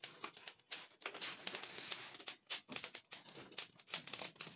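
Metal tongs shifting hot coals into a clay stove, with a wood fire crackling: faint, irregular clicks and scrapes.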